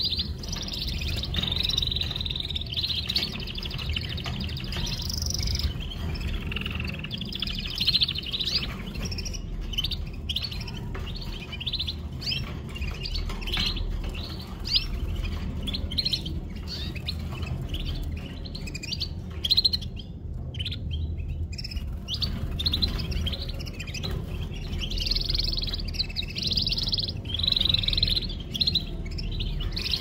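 Domestic canaries singing, a continuous run of fast warbles and trills with a short break about twenty seconds in, over a steady low rumble.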